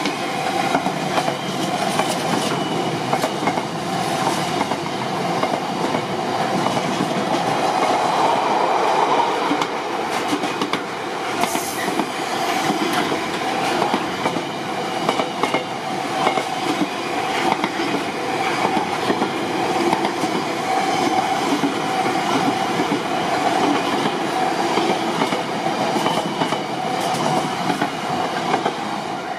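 A train running past on the line, its wheels clicking over the rail joints in a steady stream of clicks for about half a minute. The sound drops away suddenly at the very end as the train clears.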